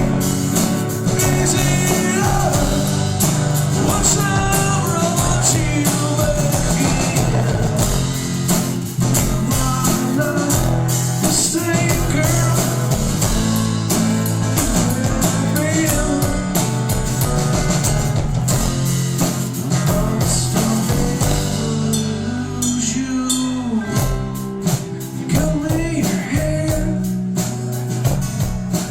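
Rock band playing live: distorted electric guitars and a drum kit, with singing over them.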